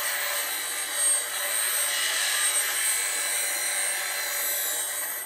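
Steel bowl gouge being ground against a spinning bench grinder wheel, a steady hissing grind with sparks flying, briefly louder about a second in. The edge is being straightened into a square-ended 'bottom feeder' grind. The grinding stops just before the end.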